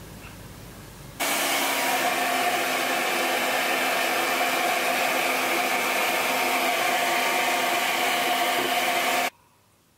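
Handheld hair dryer running, a steady rush of air with an even hum in it. It starts suddenly about a second in and cuts off shortly before the end.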